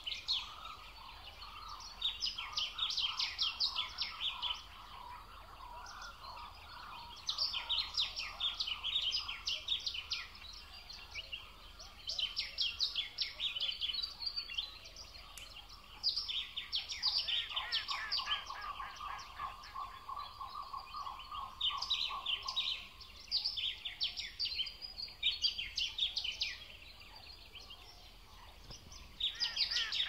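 A songbird in a reed bed singing fast, chattering phrases of about two seconds each, roughly every four to five seconds, over a lower, softer trill from another animal that fades out near the middle.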